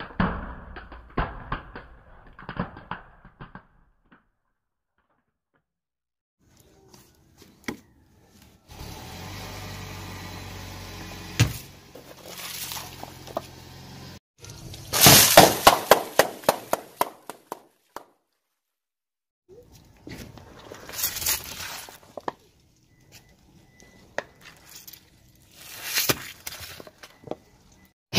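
Car tyre rolling over and crushing small plastic objects: several separate runs of quick cracks and crunches, with short silent gaps between them.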